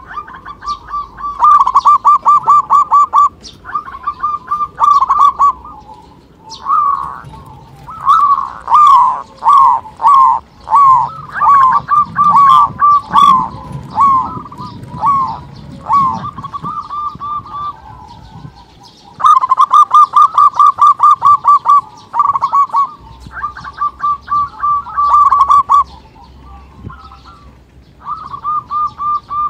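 Zebra dove (perkutut lokal) singing: repeated phrases of quick, clipped cooing notes, each phrase lasting one to three seconds with short pauses between. In the middle the phrases run together almost without a break.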